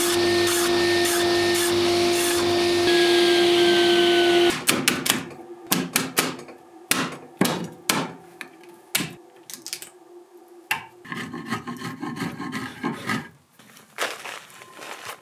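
A table saw running and cutting through an oak beam, its steady hum stopping abruptly about four and a half seconds in. Then a string of sharp, irregular claw-hammer blows on wood, knocking out the thin slices left between saw cuts, with a short stretch of rougher scraping noise near the end.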